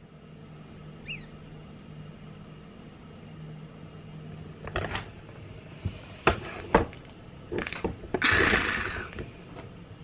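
Quiet room tone, then a run of small clicks and knocks from something being handled close to the microphone around the middle, followed near the end by a louder breathy rustle about a second long.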